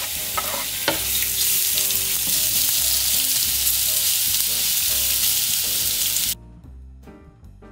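Chopped onion frying in oil in a pan, a steady sizzle that cuts off abruptly about six seconds in, leaving soft background music.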